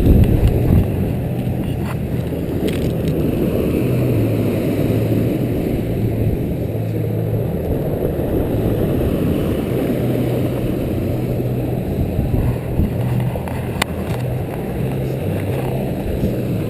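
A motor running steadily with a low hum under a loud rushing noise, unchanging throughout.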